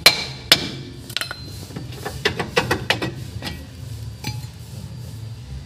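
Sharp metallic clinks and knocks, about a dozen scattered through, as a Honda Jazz's rusty rear brake drum is worked loose and pulled off the wheel hub; the first few ring briefly.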